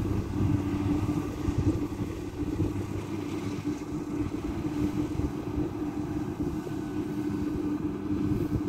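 Kubota rice combine harvester running steadily as it cuts rice: a constant engine hum over a low rumble.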